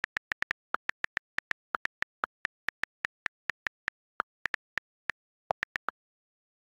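Text-typing sound effect: quick, irregular short high ticks, about five a second, one per letter as a caption types itself out, stopping shortly before the end.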